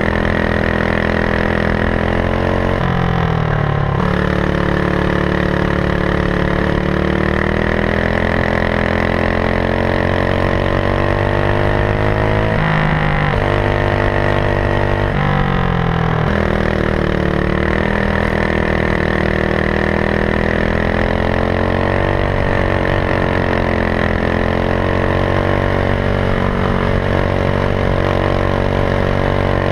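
Racing kart engine running hard on the track, heard onboard, its revs dropping for corners about three seconds in and twice around the middle, then climbing again each time.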